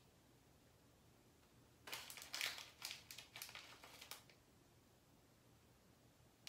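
Small plastic bag of candy flowers crinkling and rustling as fingers dig through the candies inside, a quick run of crackles starting about two seconds in and stopping a couple of seconds later.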